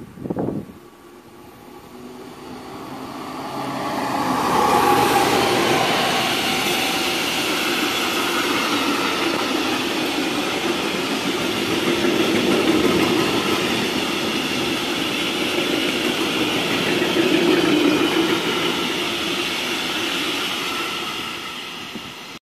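A freight train approaches and passes close by. The sound builds over the first few seconds as the locomotive nears and goes by, then a long line of covered hopper wagons keeps up a steady loud rumble and clatter over the rails. The sound cuts off abruptly just before the end.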